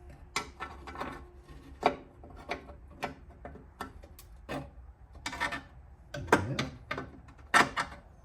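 Irregular metallic clicks, knocks and scrapes of a wrench and small metal parts being handled as a nut is fitted and turned on a riding mower's blade-belt tensioner. The clicks come every half second or so and grow busier in the last few seconds.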